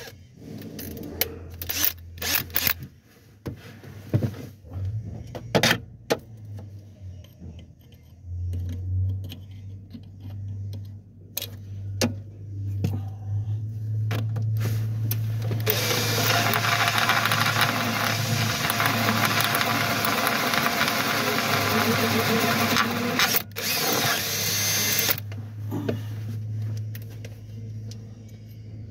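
Power drill boring a twist bit through a 4 mm oiled steel plate, throwing curled swarf. The motor runs in spells with scattered clicks and knocks for the first half, then a long, loud, steady stretch of cutting from about halfway in until a few seconds before the end.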